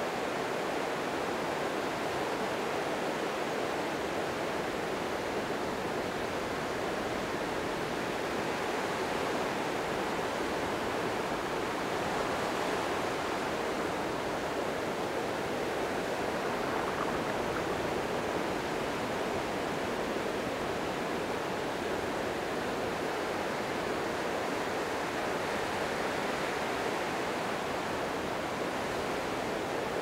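Small wind-driven waves washing onto a sandy beach at the water's edge: a steady, gentle surf wash that swells softly and eases off several times, with no sharp breaking crashes.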